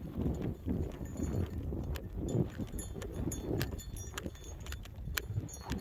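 Gusty wind buffeting the microphone as a low, uneven rumble, with scattered light clicks and crunches.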